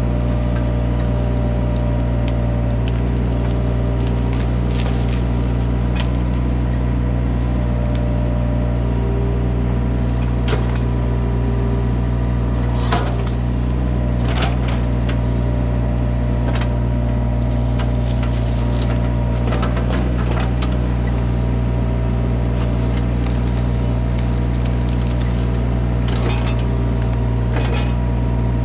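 Hitachi mini excavator's diesel engine running steadily under load, with a hydraulic whine that comes and goes as the bucket and thumb work. Scattered sharp cracks of branches and roots breaking sound through the middle and near the end.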